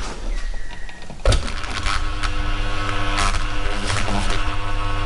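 A refurbished single-phase electric motor from an old drill press comes on with a loud click about a second in, then runs with a steady hum and a few light knocks from vibration on the bench. It runs quietly on its new bearings.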